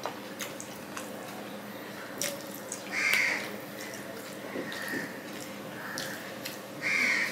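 Eating by hand: fingers working rice and curry on the plate, with wet chewing and mouth sounds and many small clicks. Two louder, brief harsh sounds stand out, about three seconds in and just before the end.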